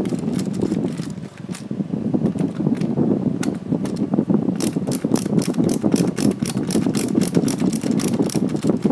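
Screwdriver turning out a screw from a toy ride-on car's plastic chassis, giving a run of rapid clicks over a low scraping rustle; the clicks thin out for a few seconds and pick up again about four and a half seconds in.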